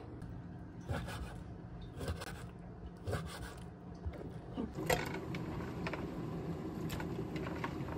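Faint rubbing and scraping of raw diced pork being handled on a wooden cutting board and in a nonstick pan. A sharper knock comes about five seconds in, followed by a few small clicks.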